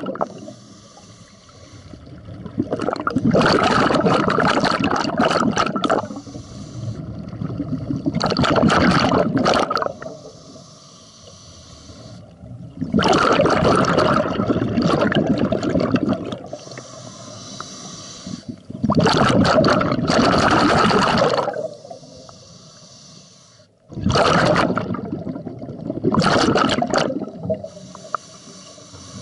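Scuba diver breathing through a regulator underwater: each exhalation sends out a loud rush of bubbles lasting two to three seconds, about five times, with a quieter hiss from the inhalations between them.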